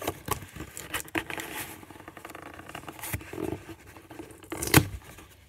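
Fingers scratching and picking at packing tape on a cardboard box, a run of small irregular scrapes and clicks with one sharper, louder click near the end.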